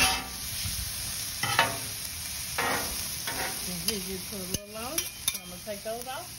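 Sliced vegetables sizzling on the steel top of a Blackstone gas griddle while a metal spatula stirs and scrapes them, a few scrapes coming about a second apart in the first half. A few short wavering tones come over the sizzle in the second half.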